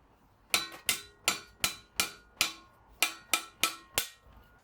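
About ten hammer blows on metal, roughly three a second with a short pause halfway. Each blow rings briefly.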